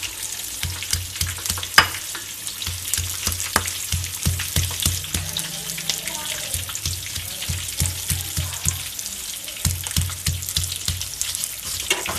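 Spices, shallots and garlic being pounded with a stone pestle in a stone mortar, a dull thud about three times a second that breaks off briefly about halfway, while peanuts fry in a wok with a steady crackle.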